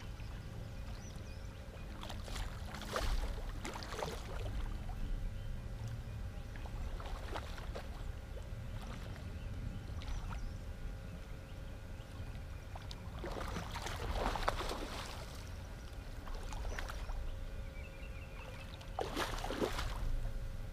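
Hooked catfish splashing and thrashing at the water's surface in short bursts: about two seconds in, again around thirteen to fifteen seconds, and near the end. A steady low rumble runs underneath.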